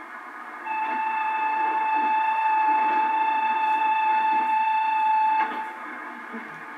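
Film soundtrack of a railway carriage interior: a steady rumble and clatter of the running train. From about a second in, a single steady high tone sounds over it for nearly five seconds, then cuts off with a click.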